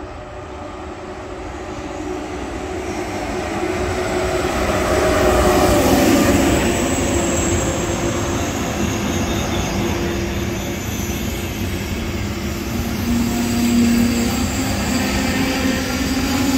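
Frecciarossa high-speed electric train passing close by, getting louder as it approaches and loudest about six seconds in as the front goes past, with a whine that drops in pitch. The wheels and carriages then go on rumbling steadily past.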